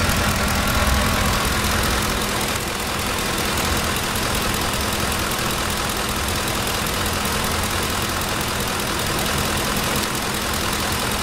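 Ford F-150 pickup's gasoline engine idling steadily, heard close up at the open engine bay by the serpentine belt and pulleys.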